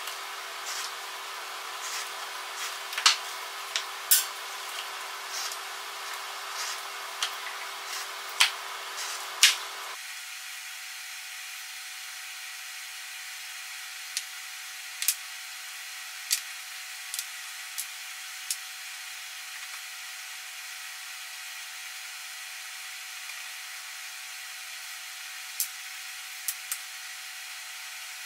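Irregular sharp knocks and clicks of small plywood blocks and one-handed bar clamps being handled and set down on a wooden workbench. They come often in the first ten seconds and only now and then after, over a steady background hum.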